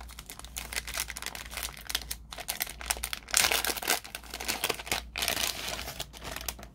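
Thin plastic bag crinkling and rustling as a phone case is pulled out of it, loudest about halfway through.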